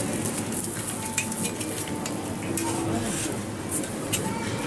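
Buckwheat galette sizzling on a hot crêpe griddle, with frequent light scrapes and taps of metal spatulas against the griddle as the filled galette is worked and turned.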